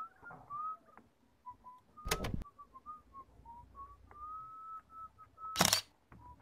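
A person whistling a slow, wandering tune softly, held notes with small slides in pitch. Two short loud rasps cut in, about two seconds in and near the end.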